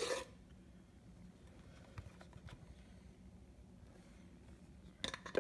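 Quiet handling noise in a kitchen, with a few faint ticks, then a quick run of sharp clatters near the end as utensils or the camera are handled.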